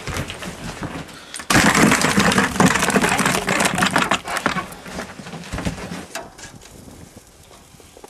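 Whitefish flopping and slapping against the other fish in a 6-gallon bucket: a sudden burst of rapid wet thrashing and rattling about a second and a half in, dying down over the next few seconds.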